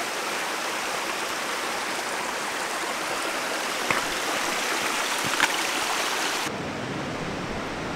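Small stream of water running over stones, a steady rushing hiss, with two sharp knocks of footsteps on the wet rocks about four and five and a half seconds in.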